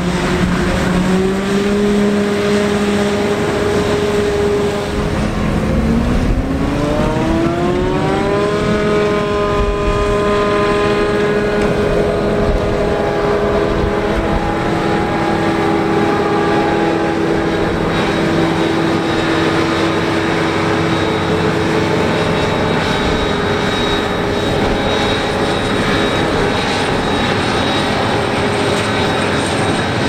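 CLAAS Jaguar 980 forage harvester's 850 hp V12 engine running under load while chopping corn. About six seconds in its pitch rises smoothly over a few seconds, then holds steady at the higher speed.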